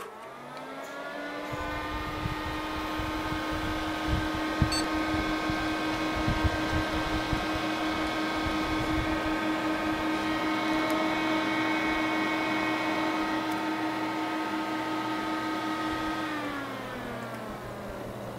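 Corsair H80i CPU liquid cooler running loud at PC start-up: a whirring hum with several steady tones rises to speed in the first second, holds, then drops in pitch and fades back about sixteen seconds in as the loud start-up noise subsides. A few low knocks of handling sound underneath.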